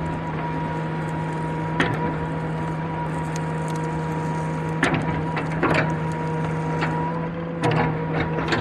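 Excavator engine running steadily with a constant hum and whine, broken by several sharp knocks, about five in all, as logs are handled.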